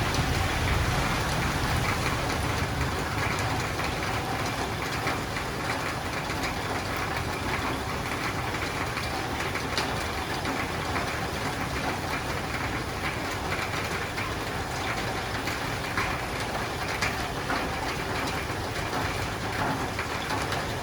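Steady rain falling on a roof, with scattered individual drops ticking through the even hiss. A low rumble in the first few seconds fades away.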